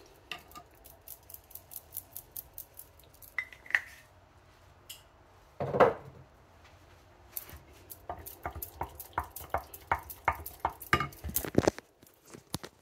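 Wooden spoon knocking and scraping against a bowl as thick quinoa cereal is stirred: scattered light taps, one louder clunk about six seconds in, then a quick run of taps that stops just before the end.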